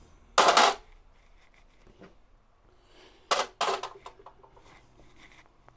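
Tools and parts being handled and set down on a workbench: a loud clatter about half a second in, then two more close together a little after three seconds in, with quieter handling noises between.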